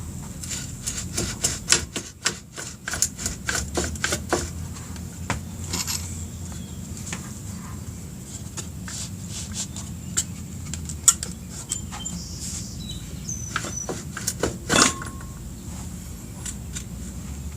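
Rear axle of a Suzuki Hayabusa being knocked out through a block of wood: a quick run of sharp taps and knocks in the first few seconds, then scattered metallic clinks and knocks, a louder one near the end, over a steady low hum.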